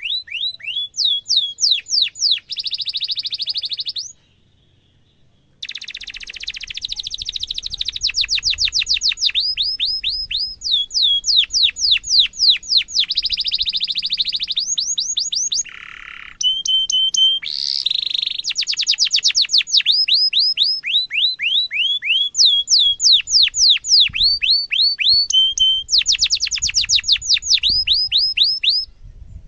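Domestic canary singing a long, unbroken-sounding song: runs of quick falling chirps alternating with fast rolling trills. The song breaks off for about a second and a half about four seconds in, then carries on.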